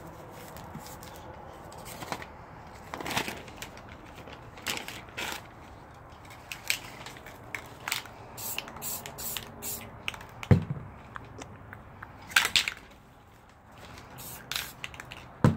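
Paper being handled and pressed on a tabletop during spray-paint art: scattered rustles, scrapes and short hisses, with two sharp knocks, one about ten seconds in and one near the end.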